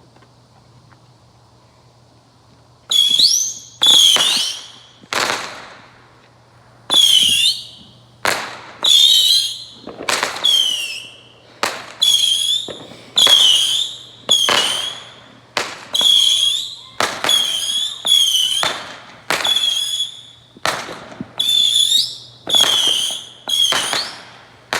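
A firework going off loudly in a rapid string of about two dozen whistling shots, starting about three seconds in. Each shot gives a sharp bang with a high whistle that falls and then holds.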